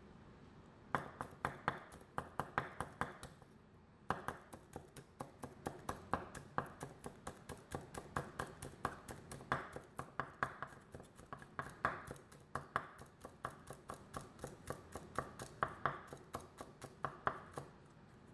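Chef's knife slicing green onions on a wooden cutting board: a fast, even run of sharp taps, about four to five a second, with a short pause about three seconds in.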